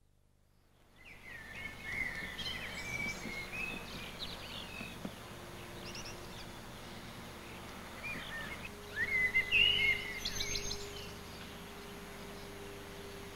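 Songbirds singing outdoors: phrases of quick chirps and warbling, gliding notes, loudest about nine to ten seconds in, over a steady background of outdoor noise.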